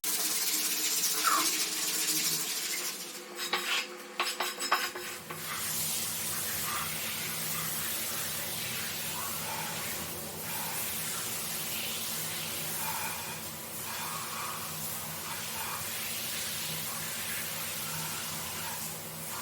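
Brush scrubbing a wet, foamy dirty carpet: a fizzing, scraping hiss. A few sharp clacks come about three to five seconds in, then a steady low hum joins under the scrubbing.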